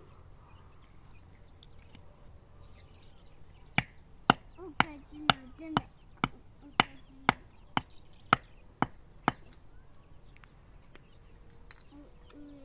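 A run of twelve sharp blows at a steady two a second, starting about four seconds in and stopping a little after nine seconds, like chopping with a hand tool.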